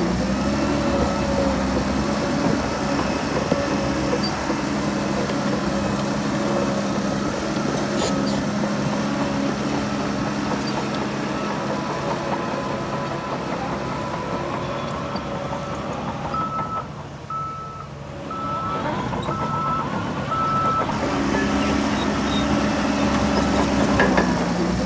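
Heavy diesel earthmoving machinery engine running steadily. The engine eases off for a few seconds past the middle, and a reversing alarm beeps five times.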